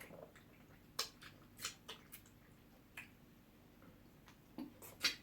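Faint, irregular wet clicks and smacks of people eating pounded yam with ogbono soup, a cluster of them about a second in and a few more near the end.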